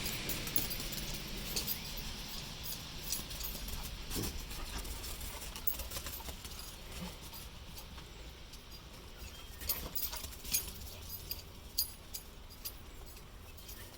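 A dog running around in zoomies: irregular thuds and clicks of its paws hitting the ground, over a steady low rumble.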